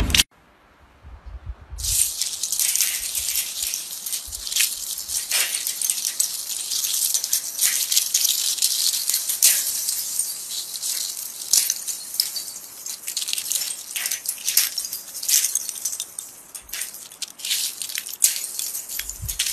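Ice crackling and crunching as fingers rub and break small shards off a large block of clear ice. It is a dense, crisp crackle of many sharp clicks that starts about two seconds in.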